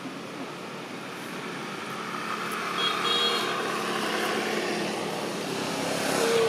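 A motor vehicle passing on the road, its noise swelling over the first few seconds and easing off near the end, with a brief high-pitched squeal about three seconds in.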